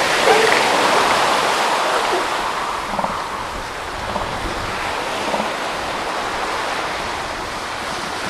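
Surf washing steadily on a sandy beach, with a few short calls from northern elephant seals squabbling in a resting pile: one just after the start as a seal rears up with its mouth open, and fainter low ones a few seconds later.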